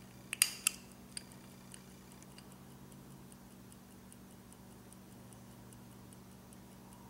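Marathon 16-jewel mechanical stopwatch started with a few sharp clicks of its crown button under a second in, then ticking steadily and faintly at about five ticks a second.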